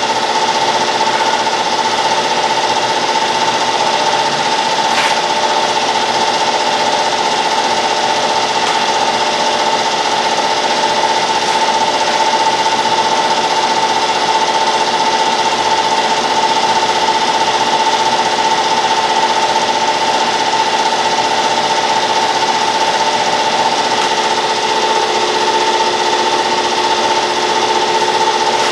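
Brown & Sharpe 10x24 universal grinder running, a steady high whine over an even mechanical hum and hiss.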